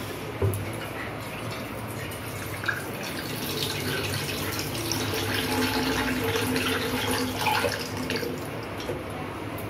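Water poured in a thin stream from a steel cup into an aluminium pressure cooker, splashing into its base around the coconut: the water for steaming. A short knock about half a second in, and the pouring runs from about three seconds in until near the end.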